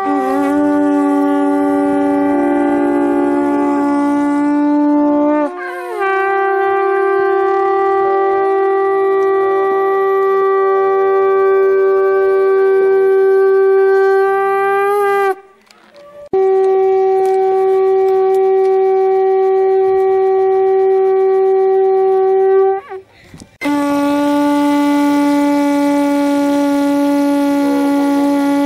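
Conch shells (shankha) blown in long, loud, held blasts, several seconds each, one after another with brief breaks for breath. Near the start two conches sound together at different pitches.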